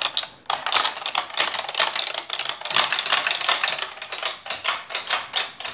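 Plastic handles of a Hydro Strike water game being worked rapidly by two players, a fast, irregular clatter of plastic clicks.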